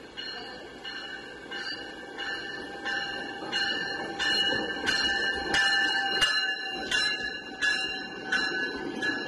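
A train's bell ringing at an even beat, about one and a half strokes a second, over the rumble of a train, growing louder as it comes near.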